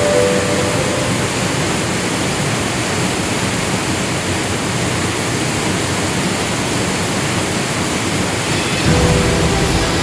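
Steady, loud rush of the gorge's river and waterfall, an even roar of water with no distinct events. Background music fades out in the first second and comes back near the end.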